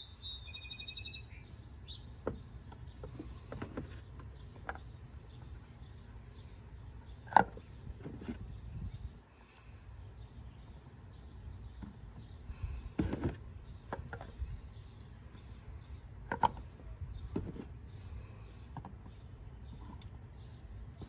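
Steady outdoor background noise with a bird chirping briefly at the start, and a few scattered clicks and knocks, the sharpest about seven seconds in, as motor oil is poured from a plastic quart bottle into a plastic funnel.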